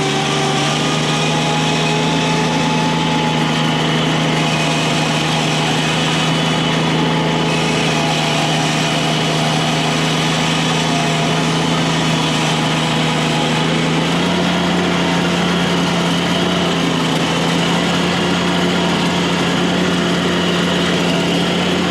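An engine running steadily at constant speed, its pitch stepping up slightly about fourteen seconds in.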